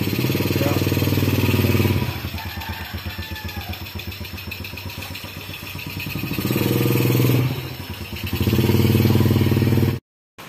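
Small underbone motorcycle engine idling with a pulsing beat, revved up three times: briefly at the start, about six seconds in and again near the end. The sound cuts off suddenly just before the end.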